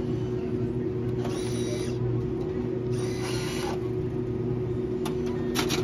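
Self-checkout bill acceptor's motor whirring twice, each time for under a second, as it draws in a dollar bill, over a steady machine hum. A rapid clatter begins near the end as the machine starts paying out change.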